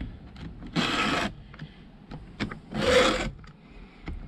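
Stihl file guide's round and flat files pushed across a chainsaw chain's cutter tooth and raker: two rasping file strokes about two seconds apart, with light clicks in between as the guide is set back. The chain tooth is being sharpened by hand.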